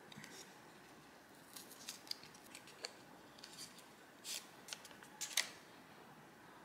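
Packet of a screen-cleaning wet wipe being opened by hand: a scatter of faint, short crinkles and snips, the loudest about four and five seconds in.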